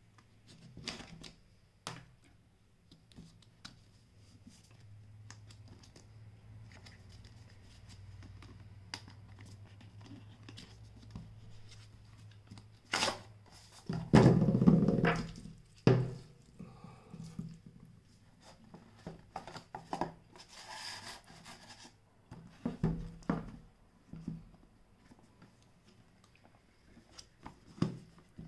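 Cardboard retail box of Jabra Elite 65t earbuds being handled and opened: scattered taps, knocks and scrapes of cardboard. About halfway through comes a louder stretch of a few seconds of scraping as the inner box slides out of its outer sleeve.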